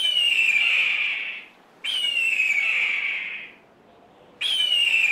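Hawk screaming: three harsh, drawn-out screams that fall in pitch, each about a second and a half long, the last one starting near the end.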